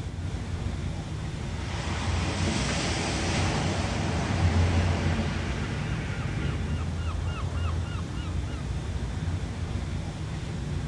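Ocean waves breaking and washing in over a steady low rumble of surf. One wave swells about two seconds in and is loudest around four to five seconds. Partway through, a bird calls in a quick run of about eight short notes.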